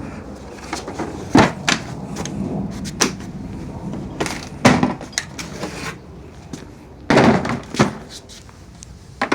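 Hard clunks and knocks from a portable toolbox and its case being handled in a home-built holding bracket. The knocks are scattered, with a longer scraping clunk about seven seconds in.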